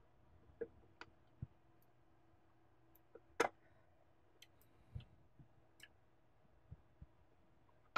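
Faint, scattered clicks and taps from handling an MSI Vega 64 graphics card while easing its board apart from the stock cooler and working at a small lighting-cable plug, with one sharper click about three and a half seconds in.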